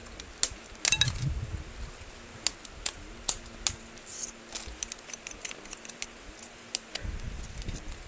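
Knife cutting and shaving a long thin pole: irregular sharp clicks and taps, with dull thumps about a second in and near the end.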